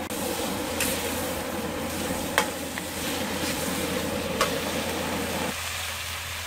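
Shrimp and snow peas sizzling in a hand-forged Zhangqiu steel wok over a high-heat propane wok burner, stirred with a metal ladle that clinks sharply against the wok three times. The stirring stops shortly before the end while the sizzle goes on.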